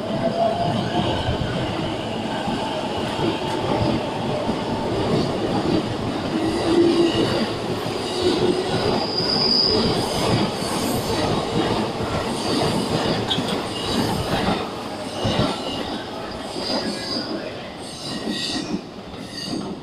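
A JR East E233-1000 series electric train pulling out of the station and rolling past close by, with wheel and rail noise from its cars. The sound dies away near the end as the last car leaves.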